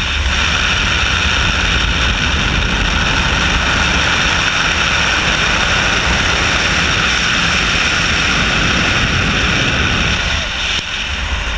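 Loud, steady rush of airflow over a camera mounted on the outside of an aerobatic glider in high-speed flight, with no engine; it eases a little near the end.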